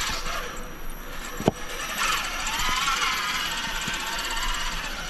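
Electric motor and geartrain of an RC rock crawler whining as it climbs, pitch rising and falling with the throttle. A sharp knock about one and a half seconds in.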